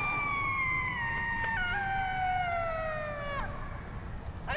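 A long coyote howl: one drawn-out call that rises quickly, then slides slowly down in pitch for about three and a half seconds with a slight break partway through. A second howl begins near the end.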